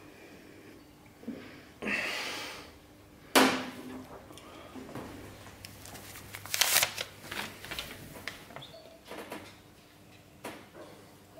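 A shot glass is set down hard on a table about three and a half seconds in, a single sharp knock and the loudest sound. Around it are softer handling noises: a short rustle, several light knocks and clicks, over a faint steady hum.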